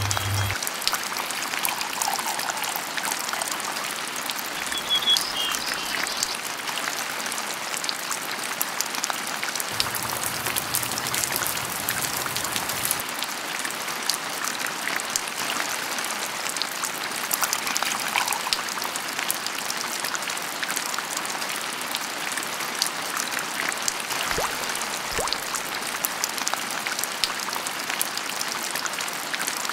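Steady rain falling, a dense even hiss sprinkled with the ticks of single drops.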